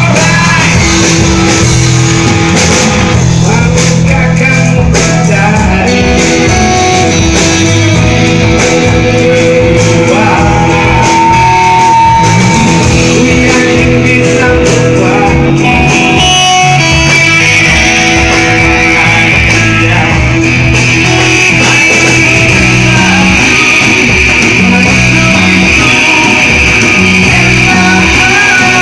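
Amplified rock band playing live: electric guitar over bass and a steady drum beat.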